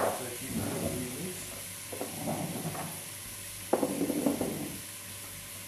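Chopped onions frying in melting butter and oil in a stainless steel stockpot, sizzling steadily, with three short, louder bouts of stirring and clatter from the pot.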